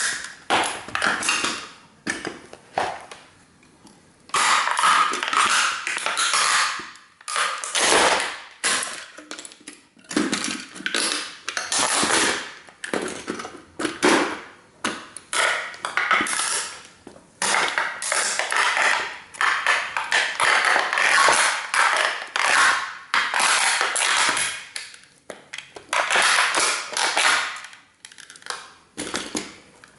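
A 1:18 scale model car being stomped and trampled under sneakers: its parts crunch, creak and crack in irregular bursts, each lasting a second or so.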